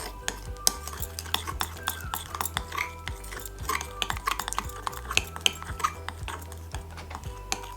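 A spoon or utensil stirring in a bowl, with many quick, irregular clinks and taps against its side as slime ingredients are mixed.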